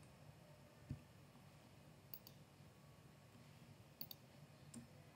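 A few faint, scattered clicks of a computer mouse and keyboard over near silence, as an equation is entered on a computer.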